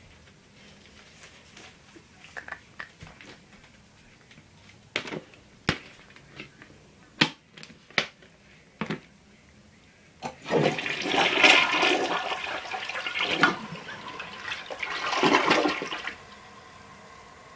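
Toilet flushing hard enough to clear a bowl stuffed with tissue and cloth: first several sharp clicks and knocks, then about ten seconds in a loud rushing gush of water lasting about six seconds, dropping near the end to a quieter steady hiss.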